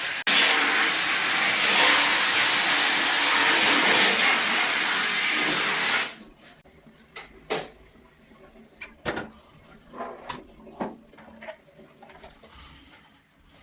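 Water spray jet hissing steadily, with a short break just after the start, then cutting off about six seconds in. It is followed by scattered drips and small knocks.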